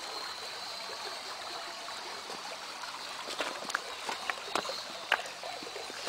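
Shallow creek water running and trickling over rocks, a steady rush. In the second half, a few light knocks and clicks.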